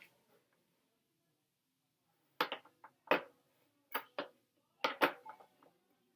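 Batteries and the battery compartment of a Casio CTK-2300 keyboard being handled: a run of about nine sharp plastic clicks and knocks, starting a couple of seconds in and bunched in pairs.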